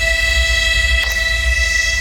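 TE33A diesel locomotive's horn sounding one long, steady, multi-tone blast as the train departs, over a low rumble.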